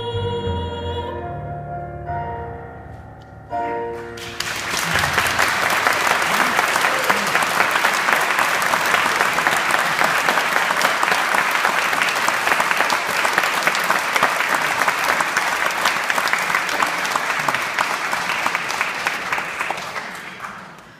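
The last notes of a soprano's song with piano accompaniment die away. About four seconds in, the choir and audience break into steady applause, which fades out near the end.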